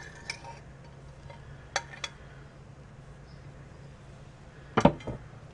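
A metal spoon clinking against a small glass jar as dried jalapeño powder is scraped in: a few light clicks, then a louder double clink near the end, over a faint steady low hum.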